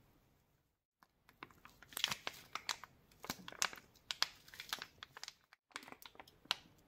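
Mayonnaise squeezed from a plastic squeeze bottle onto shredded vegetables: a dense run of irregular crackles and sputtering clicks as the sauce and air are forced out of the nozzle. The run is broken by a brief silence about two-thirds through and starts again near the end.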